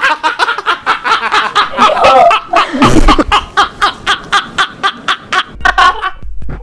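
People laughing hard, in loud, quick, repeated bursts.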